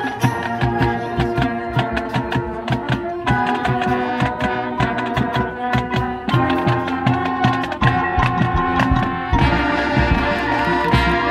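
Marching band playing its field show: brass and woodwinds hold chords over rapid drumline and front-ensemble percussion hits. The low end swells about nine seconds in.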